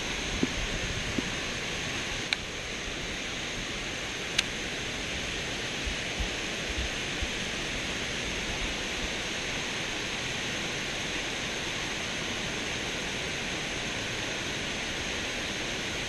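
Steady rushing of water pouring over a small stepped concrete spillway, with two sharp clicks about two seconds apart near the start.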